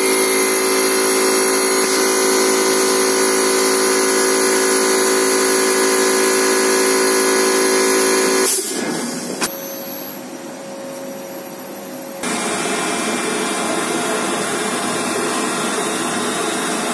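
Workshop machinery running with a steady multi-tone whine and hum that cuts off suddenly about eight seconds in. After a quieter stretch with a single click, a CNC lathe starts turning a metal workpiece, with a steady, rougher noise of spindle and cut.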